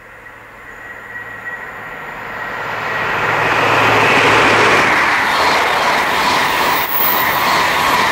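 High Speed Train (InterCity 125) led by its Class 43 diesel power car approaching and passing at speed. The rush of engine and wheels on rail builds over the first four seconds, then stays loud and steady as the coaches go by.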